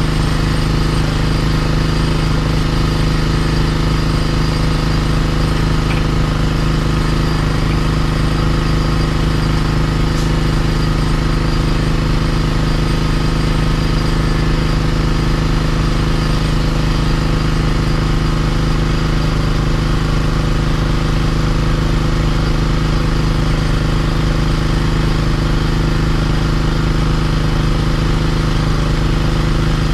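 Engine of a LUKAS hydraulic rescue-tool power unit running steadily at one constant speed.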